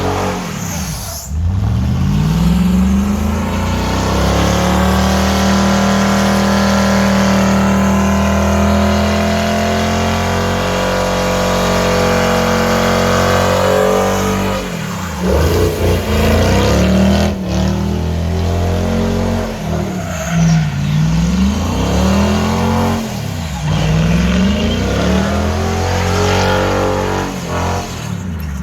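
Rat rod Ford truck's engine revving hard during a burnout. It rises and is held at high revs for about twelve seconds, then is revved up and down over and over.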